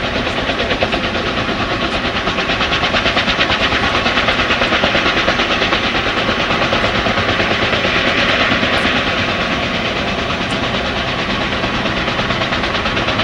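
Helicopter rotor chop and engine noise, steady, loud and rapidly pulsing, growing a little louder through the middle and easing slightly near the end.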